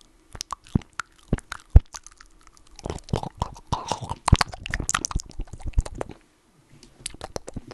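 ASMR mouth sounds right up against a microphone: a run of irregular wet clicks, pops and lip smacks, with a brief pause about six seconds in.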